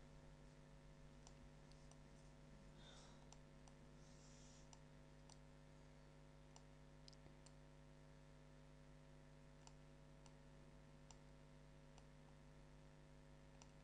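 Near silence with a faint, steady low hum, broken by scattered, irregular faint computer mouse clicks, about one a second.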